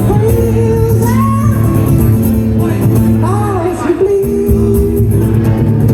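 A man singing live with instrumental accompaniment, holding long notes that bend in pitch.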